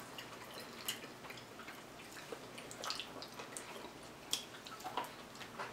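Faint, irregular wet clicks and smacks of mouths chewing and gnawing sticky barbecue ribs close to the microphone.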